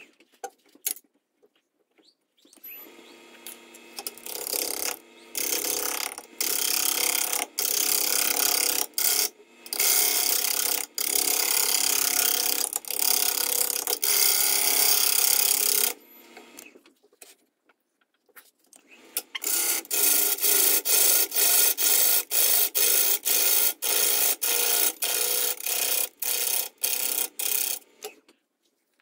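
Turning gouge cutting a spinning eucalyptus burl bowl on a wood lathe: a rough scraping shear of wood chips in repeated short passes with brief breaks between them, and a pause of a few seconds midway.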